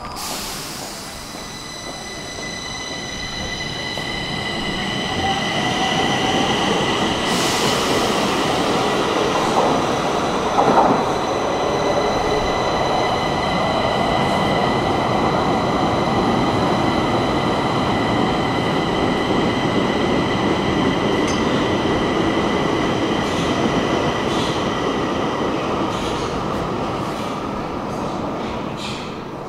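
Stockholm metro train running through the underground station: a rumble of wheels on rail with a steady high-pitched wheel squeal above it. It builds over the first several seconds, holds, and fades near the end. There is a single metallic clank about eleven seconds in.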